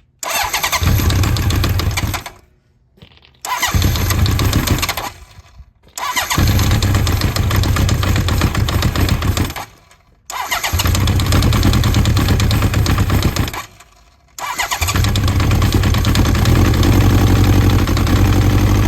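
Honda CB900F's big-bore 985cc inline-four, on Keihin FCR33 flatslide carbs with no choke, cold starting after months of standing. Four times it fires up on the starter for a few seconds and dies away. About fourteen seconds in it catches and keeps running.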